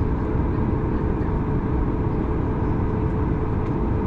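Cabin noise inside a Boeing 737 MAX 9 taxiing on its CFM LEAP-1B engines at idle: a steady low rumble with a steady hum running through it.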